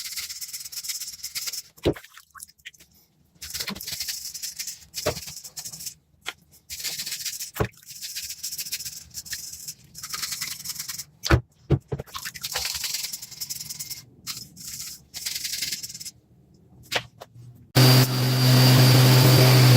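Rusty metal being scrubbed by hand in short bursts of scratchy strokes, with a few sharp clicks and knocks between them. Near the end an electric power tool's motor starts and runs with a steady hum.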